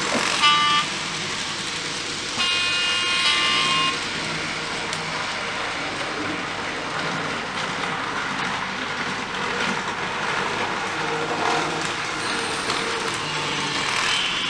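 Sound decoder in an N gauge model Class 321 electric multiple unit sounding its horn through a small onboard speaker: a short blast about half a second in, then a longer, louder blast lasting about a second and a half. After the horn, the model's steady running sound carries on.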